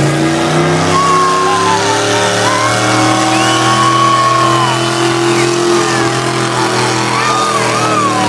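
Engine of a competition pulling vehicle running hard under load, a loud, steady high-revving drone that sags slightly in pitch near the end, with voices mixed in.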